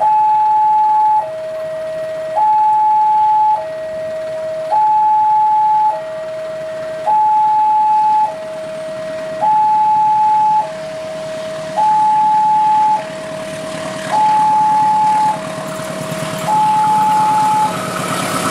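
Railway level-crossing warning alarm sounding a two-tone electronic signal: a high tone and a lower tone alternate about every second. It warns of an approaching train. About halfway through, the rumble of the approaching diesel-hauled train rises beneath it, and the alarm stops shortly before the end.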